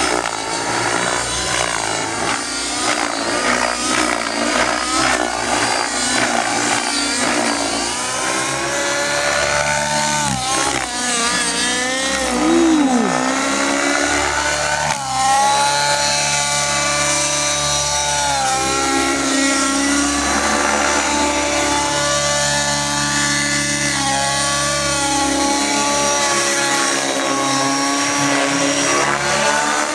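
Align T-Rex 700N nitro RC helicopter in flight, its two-stroke glow engine running at high speed. The engine pitch dips and recovers several times as the rotor load changes through the manoeuvres, most sharply about ten to thirteen seconds in.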